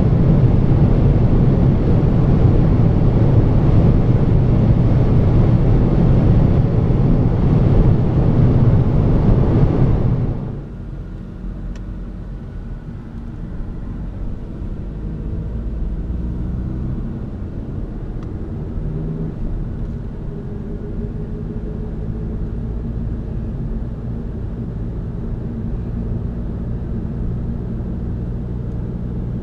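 Inside the cabin of a VW Golf 7 with the 2.0 TDI four-cylinder turbodiesel: loud, even wind and tyre noise at about 205 km/h. About ten seconds in, the level drops suddenly to a much quieter low engine hum and road noise at town speed, the engine note rising and falling a little.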